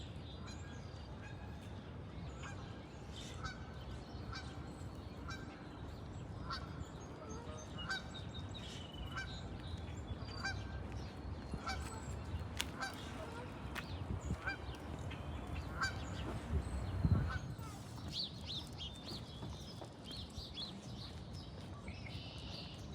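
A goose honking over and over, about one call a second, stopping about three-quarters of the way through. Small birds then chirp, over a steady low rumble, with a brief low thump as the honking ends.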